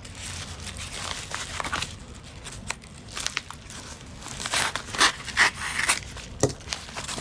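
Padded paper mailer being handled and opened: paper crinkling and tearing in irregular strokes, loudest about five seconds in.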